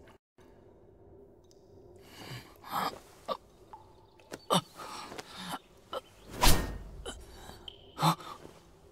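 A young man's gasps, groans and heavy breaths as he comes to and sits up. A loud whoosh comes about six and a half seconds in.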